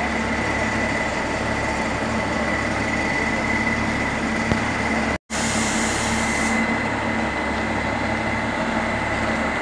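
A steady mechanical hum and drone with a constant high whine over it, broken by a momentary dropout about five seconds in.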